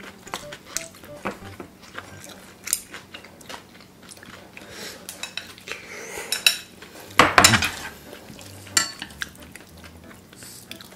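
Chopsticks and utensils clicking and tapping against glass bowls and a frying pan as noodles are lifted and served, in scattered light knocks. A louder eating sound comes about seven seconds in.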